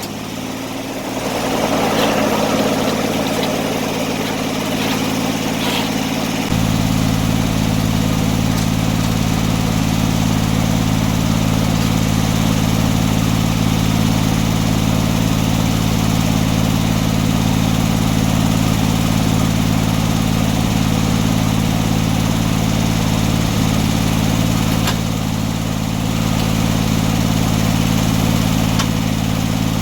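An engine running steadily at a constant speed; its sound deepens slightly about six and a half seconds in and then stays even.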